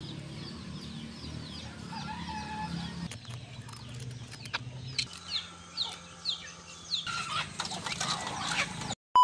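Chickens clucking, with a run of short, high, falling chirps repeating about twice a second and a few sharp clicks.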